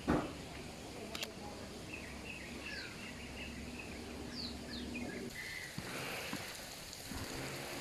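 Wild birds calling: several short, high chirps that drop in pitch, and a brief chattering run about two seconds in, over a steady background noise with a low hum. A single thump comes right at the start.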